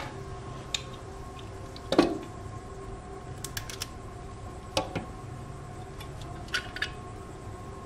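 Scattered clicks and light knocks of a disassembled computer power supply's metal housing and parts being handled, the loudest knock about two seconds in, over a faint steady hum.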